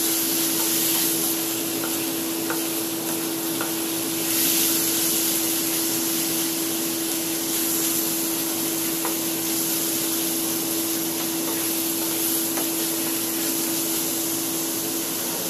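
Beef chunks sizzling steadily in a hot pan with garlic as they are stir-fried, a wooden spatula tapping against the pan now and then. A steady low hum runs underneath.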